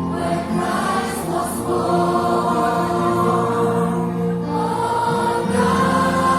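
Children's choir singing slow, long-held notes, the melody moving to new notes about four and a half and five and a half seconds in.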